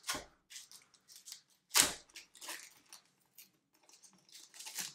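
Foil Pokémon booster pack wrapper being torn open and crinkled: a sharp rip about two seconds in among smaller crackles, with another flurry of crinkling near the end.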